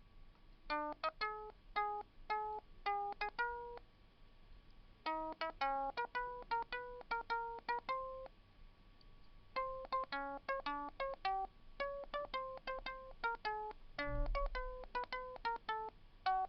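Computer-generated guitar tone playing back a sung melody that has been converted to MIDI: a quick run of single plucked notes in short phrases, with pauses of about a second between them.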